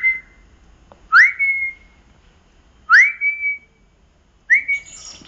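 Squeaky dog toy squeaking four times as a puppy bites it, each squeak a short rising tone that levels off.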